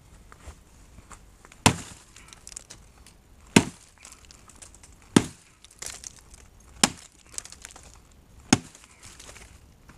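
Gränsfors Bruks Scandinavian Forest Axe chopping wood: five sharp strikes, a little under two seconds apart, with faint small knocks and rustles between them.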